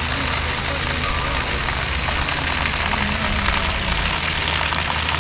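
An engine running steadily at a low, even speed, under a loud steady rushing noise.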